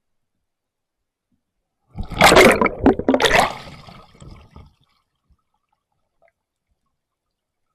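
A burst of water splashing about two seconds in, lasting a couple of seconds, with two loud surges about a second apart before it fades.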